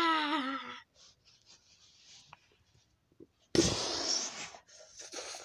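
A person's drawn-out wail, falling in pitch and breaking off within the first second. After a quiet gap comes a sudden loud breathy whoosh about three and a half seconds in, then softer hissing noises.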